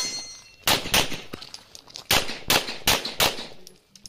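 A competition pistol fires about seven shots, mostly in quick double-taps: one shot, then three pairs, each pair a third of a second or so apart. A steel target plate rings briefly with a metallic tone after the first shot.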